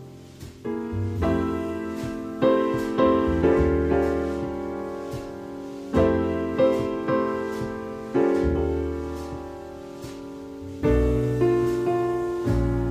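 Instrumental piano music: chords struck every second or two, each one fading away, over a low bass line.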